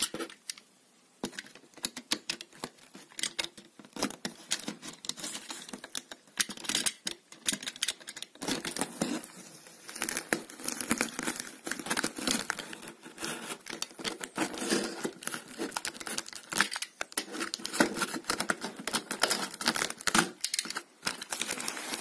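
Snap-off utility knife slicing along the packing-tape seam of a cardboard box, a run of irregular scratching, crackling and tearing of tape and cardboard that starts about a second in.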